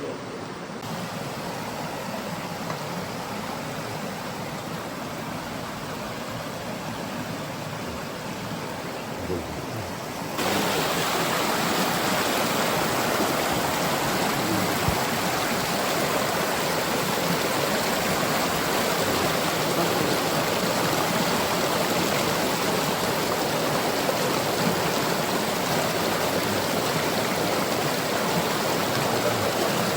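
Steady rush of running stream water, an even wash of noise that jumps abruptly louder about ten seconds in.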